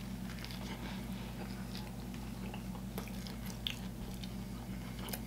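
A person biting into and chewing a chopped cheese sandwich, with faint scattered wet mouth clicks, over a steady low hum.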